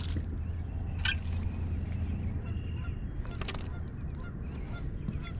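Geese honking faintly, over a steady low rumble, with a sharp click about three and a half seconds in.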